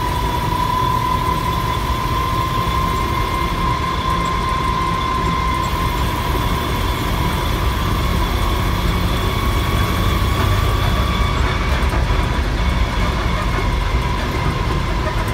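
A 1967 Kaiser Jeep M715 with its Tornado overhead-cam six-cylinder engine, heard from inside the cab while cruising at a steady speed. A low rumble runs under a steady high whine, which rises slightly about ten seconds in and then settles back.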